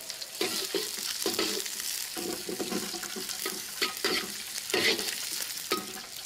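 Young ginger slices sizzling in hot black sesame oil in a wok as they fry until fragrant, with a spatula stirring and scraping in irregular clicks over the steady hiss of the oil.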